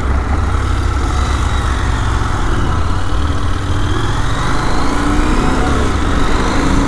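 KTM motorcycle engine running under way, with a steady low rumble; its pitch rises from about four seconds in as the bike speeds up.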